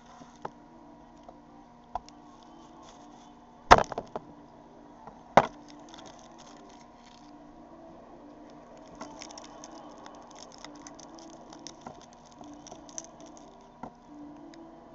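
Garlic being peeled by hand on a wooden cutting board: two sharp knocks on the board a little under four and five and a half seconds in, then a run of light crackling from the papery garlic skins being pulled off.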